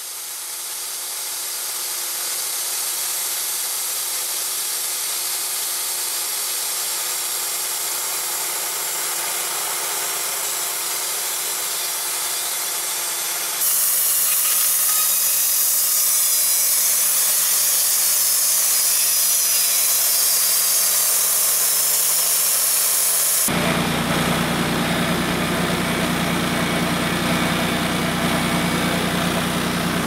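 Wood-Mizer LT35 portable bandsaw mill running and sawing a large white oak log, in cut-together stretches: a steady mechanical sound, then from about halfway a louder hiss of the band blade, and near the end the mill's engine close by with a strong low hum.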